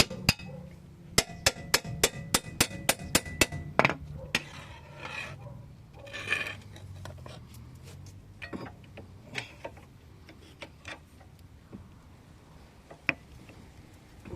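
Metal tools clinking and knocking against a Fiat Stilo's control arm and hub while the ball joint is worked loose with a crowbar: a quick run of about a dozen sharp ringing clinks, then scattered knocks.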